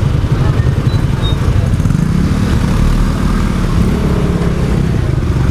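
Motor scooter running under way, a steady engine drone with road and wind noise, the engine pitch rising about two seconds in.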